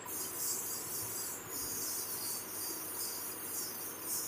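Insects chirping in a continuous high-pitched pulsing trill.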